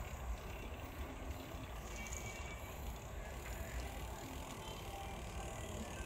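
Bicycle freewheel ratchet ticking as the rider coasts, over a steady low rumble from the ride.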